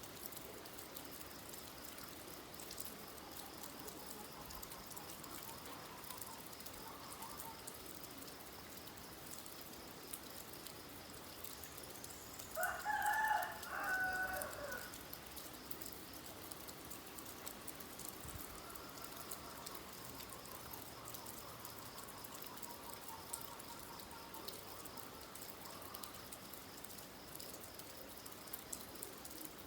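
Steady light rain, with fine drop ticks, under a rooster crowing once loudly about halfway through. Fainter fowl calls come and go before and after the crow.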